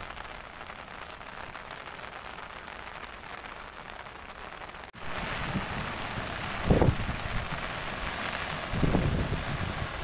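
Steady patter and hiss of rain on an umbrella held over the camera. About five seconds in it cuts to a louder steady rush of rain and surf, with short low rumbles of wind buffeting the microphone twice.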